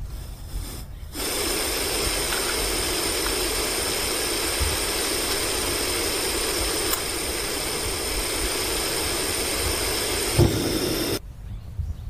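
Steady hiss of a gas stove burner, played as a sound effect. It starts suddenly about a second in, and cuts off suddenly near the end just after a short low thump.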